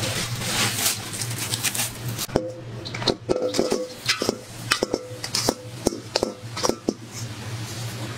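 Baking ingredients tipped into a stainless steel mixing bowl: first a hissing pour of crumbly mix from a plastic bag, then, from about two seconds in, a small metal bowl clinks and scrapes against the big bowl's rim again and again, each clink ringing briefly. A steady low hum runs underneath.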